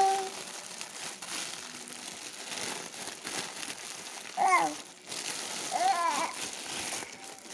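Clear plastic packaging crinkling and rustling as small hands pull at a bagged garment. Two brief pitched vocal sounds cut in during the second half.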